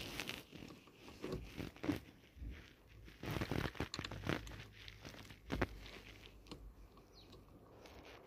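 Light handling noises, scattered clicks, taps and rustles, as an aftermarket steering wheel is fitted onto its hub and its bolts are started. The sharpest knock comes about five and a half seconds in.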